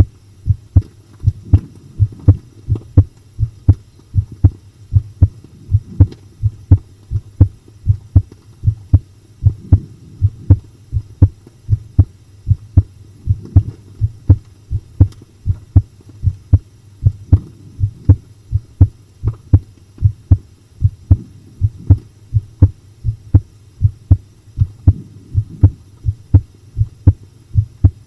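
Close-up recording of a human heartbeat: a steady rhythm of low lub-dub thumps.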